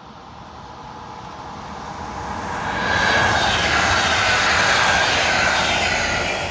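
Passenger train passing at speed. The sound rises as it approaches, is loudest from about three seconds in, then starts to fade as it goes by.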